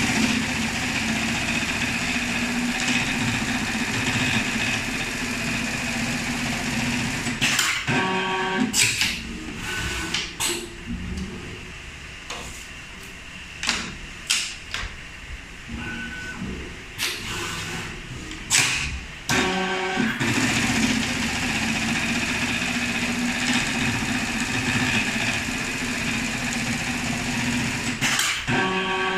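Chache computerized pattern sewing machine stitching a shoe-upper template: a steady, fast needle run for about seven seconds, then a quieter stretch of clicks, knocks and sliding as the automatic feeder swaps templates, then a second steady stitching run of about eight seconds. Short whirs mark the ends and starts of the stitching runs.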